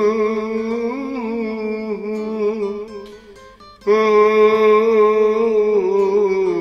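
A person humming a tune in long, wavering held notes. The humming fades out about three seconds in and starts again just before the four-second mark.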